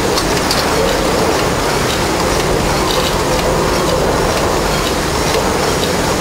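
Werkspoor drop-valve stationary steam engine, with Meier Mattern hydraulically actuated valves, running: a steady loud mechanical din with a few light clicks from the valve gear.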